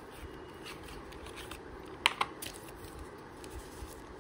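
Cardboard and paper earbud packaging being handled: faint rustles and small ticks, with two sharp clicks close together about two seconds in.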